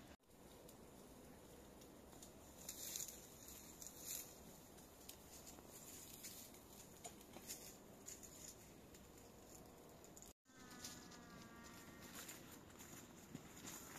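Near silence: faint open-air hiss with a few soft rustles and ticks of twigs and leaves. The sound drops out completely twice, just after the start and about two-thirds in. Right after the second dropout there is a faint pitched sound lasting about a second and a half.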